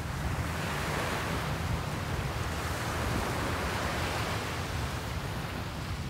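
Calm sea surf: small waves breaking and washing up a sandy beach, a steady hiss of water that swells twice and eases.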